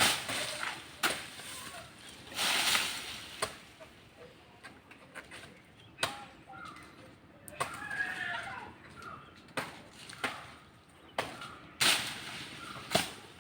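A coconut palm trunk being chopped by hand with a blade: sharp single blows at uneven intervals, one every second or two, with a couple of longer rougher hits.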